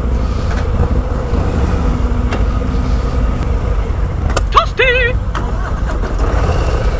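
Harley-Davidson Low Rider ST's Milwaukee-Eight 117 V-twin idling with a steady low rumble, with other motorcycles running nearby. About four and a half seconds in, a short high-pitched wavering call cuts through for about a second.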